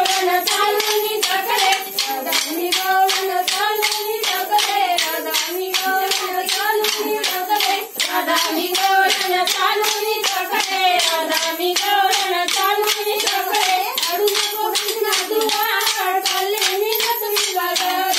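Short wooden dance sticks struck together in a fast, even rhythm of about four clicks a second. Women's voices sing a folk melody over the clicks.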